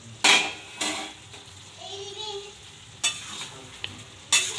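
A metal spoon stirring chicken in a kadai, with four sharp clanks of metal on the pan; the first, about a quarter second in, is the loudest. A faint sizzle runs underneath as the pieces are turned to check whether they have cooked through.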